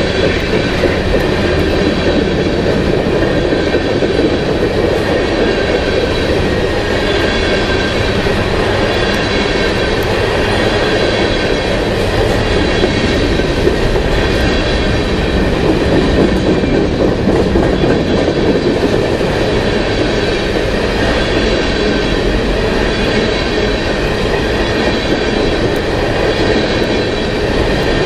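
Norfolk Southern freight train's covered hopper cars rolling past close by: a steady, loud rumble of steel wheels on rail with continuous clatter, and a faint high wheel squeal held throughout.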